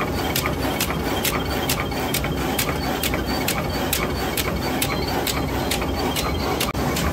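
Bubble wrap cutting machine running, a steady mechanical clatter with a sharp click about twice a second as it cycles.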